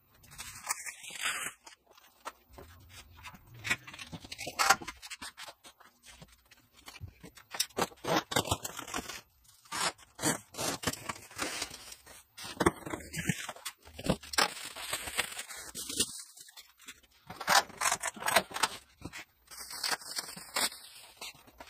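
Packaging being handled while unboxing: a cardboard shipping box opened and bubble wrap rubbed and pulled. Irregular scraping, rustling and crinkling in uneven bursts throughout.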